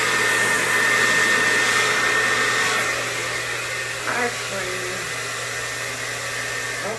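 Handheld hair dryer running steadily with a high motor whine, blowing air across wet paint; it becomes a little quieter about three seconds in.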